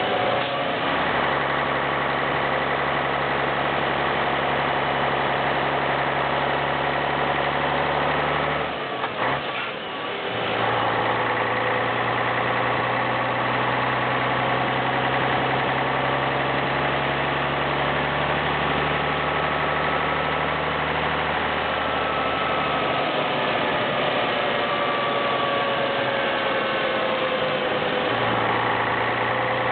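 Pegaso 310 hp truck's diesel engine running steadily while the truck is driven. About nine seconds in, the sound briefly drops and breaks, then comes back at a different pitch, which fits a gear change. The note shifts again a couple of times later.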